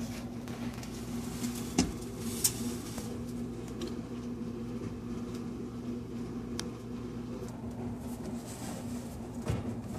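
Steady low electrical or motor hum, with sharp clicks about two seconds in and a knock near the end.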